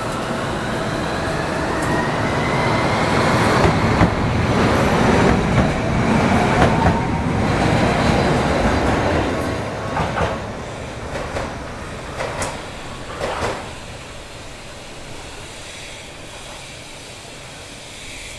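A Tokyu Setagaya Line light-rail train passes. Its running noise and motor whine rise to a peak and then fade. A few sharp clicks of the wheels over rail joints come about ten to thirteen seconds in as it moves away.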